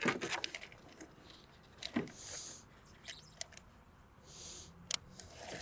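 Quiet handling of a rowing shoe and its heel-restraint cord: a few small clicks and soft rustles as the cord is attached to the shoe's D-ring.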